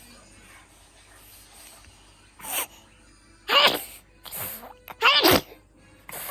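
A three-month-old baby sneezing twice in quick succession, loud and short, each sneeze preceded by a shorter, quieter sound.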